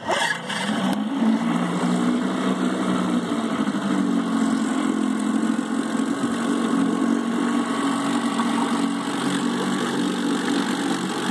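1971 Johnson 4 hp twin-cylinder two-stroke outboard catching right at the start, then running at a steady, smooth low idle. Its direct-drive propeller churns the water in a test barrel.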